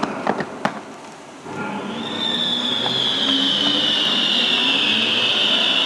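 Fireworks show: a few sharp bangs in the first second, then from about a second and a half in a loud, sustained high screeching hiss that slowly falls in pitch.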